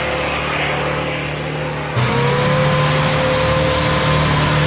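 Modified four-wheel-drive truck's engine held at high revs under full throttle on a hill climb, the note steady, with a sudden jump louder about two seconds in.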